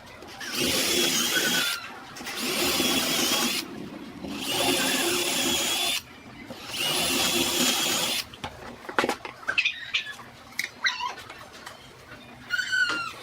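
A power tool running in four short bursts of one to two seconds each, with a steady whine. After the bursts come several sharp clicks and a few short, squeaky chirps.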